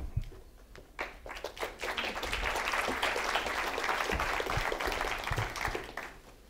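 Audience applauding. Scattered claps come in about a second in, thicken into steady applause, then die away near the end.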